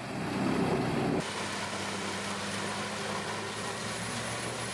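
Heavy diesel machinery running. About a second in, a louder, rougher sound gives way abruptly to a steady engine hum with a faint high whine.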